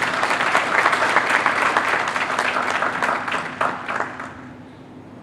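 Conference audience applauding: dense clapping that thins out and stops about four seconds in.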